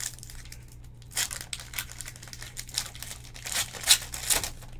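Foil trading-card pack wrapper crinkling and tearing open by hand, in irregular rustling crackles, loudest about four seconds in, over a low steady hum.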